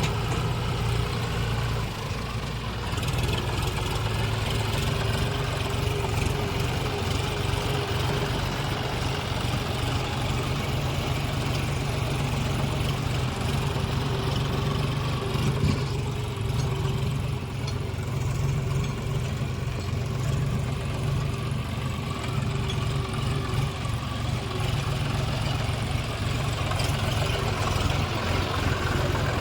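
Heavy diesel engine running steadily at a near-constant speed, with a brief dip in level about two seconds in.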